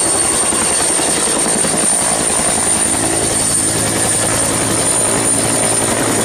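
Turbine helicopter with a two-bladed main rotor lifting off and hovering low: a steady rotor beat with a steady high turbine whine above it.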